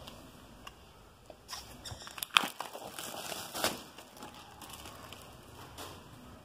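A hardcover book being handled: rustling and crinkling with a few sharp clicks, the loudest about two and a half seconds in and again a second later.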